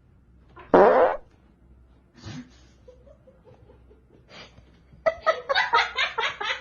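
A short, loud fart-like blurt about a second in, then, from about five seconds in, a person laughing in quick repeated bursts.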